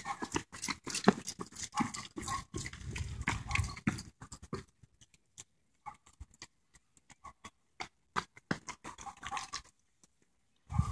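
Running footsteps slapping on a brick-paved path as runners pass close by. They are dense at first, thin out around the middle and pick up again later.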